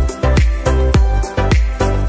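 Background music with a fast, steady beat and heavy bass.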